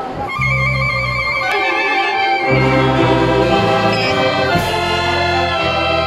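A symphonic concert band of clarinets, saxophones, trumpets and trombones starts playing just after the opening. A melody sounds over sustained low notes.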